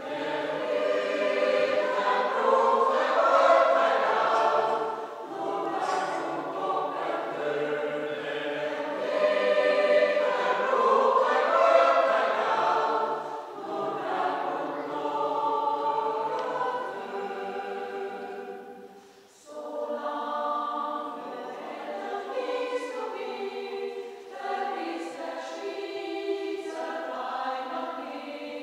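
Mixed choir of men and women singing, with a brief break between phrases about two-thirds of the way through.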